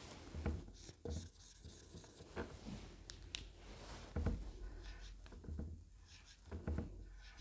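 Marker pen drawing on a whiteboard: faint, irregular short strokes of the felt tip rubbing across the board.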